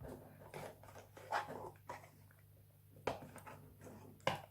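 Faint handling noise of box packaging and accessories being taken out: a few light rustles and clicks, with a sharper tap about three seconds in and another near the end.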